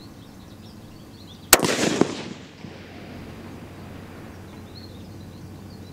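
A single shot from a bolt-action precision rifle with a muzzle brake about a second and a half in: a sharp crack that rolls on for about half a second, with a second sharp crack half a second after the shot.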